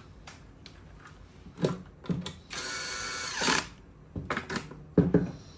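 Electric screwdriver driving a screw, a steady whine lasting about a second midway, with scattered clicks of screws and parts being handled before and after.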